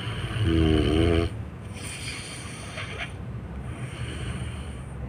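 A sleeping person snoring: one loud, drawn-out snore about a second long near the start, then quieter breathing.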